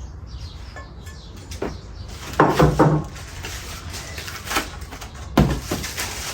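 Knocks and clatter of a heavy cooking pot and its lid being handled: a quick cluster of knocks about two and a half seconds in, then two single knocks near the end.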